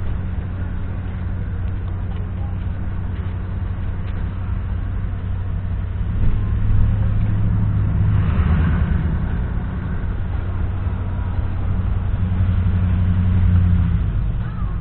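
Steady engine and tyre drone of a car driving on a wet road, heard from inside the cabin. About eight seconds in, an oncoming pickup truck passes with a brief rush of noise.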